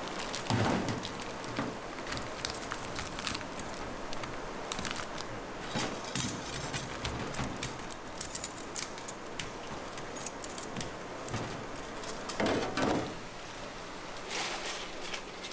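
Metal utensils clinking and scraping on a steel griddle over a steady sizzle, with louder clatters about half a second in and again near the end.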